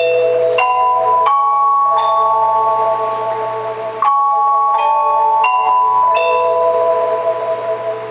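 Mallet percussion playing a slow melody of long ringing notes, each new note struck about every second and left to ring over the next.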